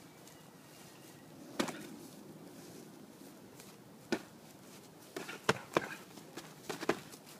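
Boxing gloves smacking as punches land in sparring: a single smack about a second and a half in, another near the middle, then a quick flurry of several smacks toward the end.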